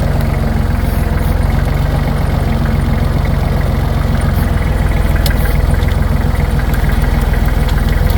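Tractor engine running steadily under the driver, with an even low throb.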